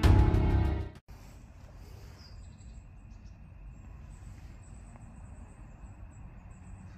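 Dramatic intro music cuts off abruptly about a second in, giving way to quiet outdoor ambience: a steady low rumble with faint high-pitched chirping.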